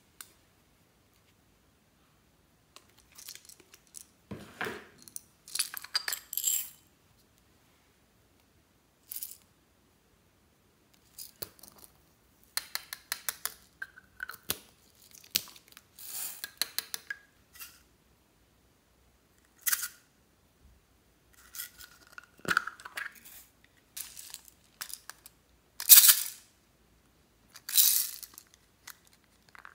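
Small plastic toy containers being handled and opened over a glass dish of slime: clusters of plastic clicks, taps and small rattles, with silent gaps between them and the loudest clicks near the end.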